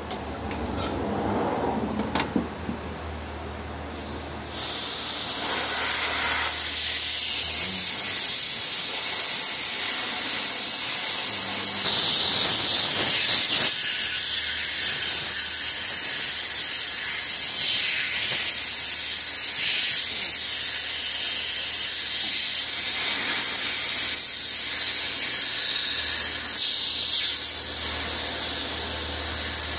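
Loud, steady hiss of gas rushing through refrigeration service hoses, starting abruptly about four and a half seconds in after a few small clicks of the hose fittings.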